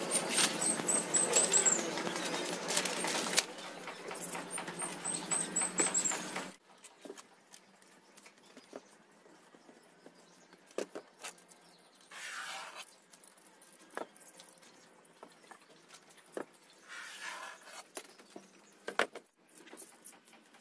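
Light knocks, taps and scrapes of wooden boards being handled and laid on a work table. A bird gives a quick run of high chirps twice in the first six seconds, over a background hiss that drops away about six seconds in.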